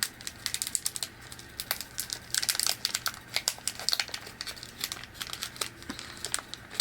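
Crinkling and crackling of a chocolate peanut cup's candy wrapper being handled and opened, in quick irregular clicks.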